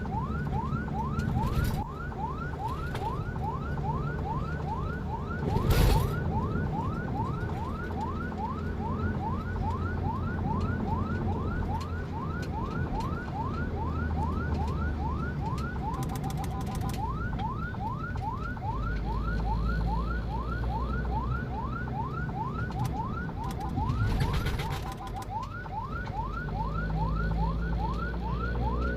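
Ambulance siren on a fast yelp: quick rising whoops, about three a second, over a steady low engine and road rumble. The yelp breaks off briefly twice, about halfway through and again near the end, for a short steadier blast.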